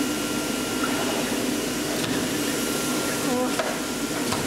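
Smart Cutter CNC fabric-cutting machine running with a steady whooshing hum from its vacuum hold-down table blower. Faint voices in the background a little after the middle.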